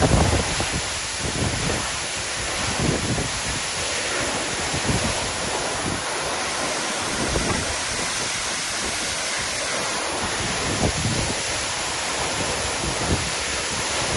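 Waterfall water falling and splashing in a steady, unbroken rush, with irregular low buffeting on the microphone.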